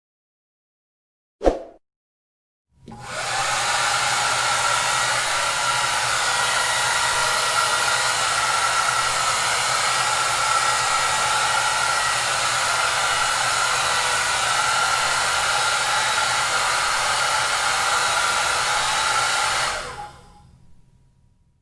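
Hair dryer: a single click, then about a second later the dryer starts and runs steadily, its fan rushing over a low motor hum and a faint whine, before it is switched off near the end and winds down to nothing.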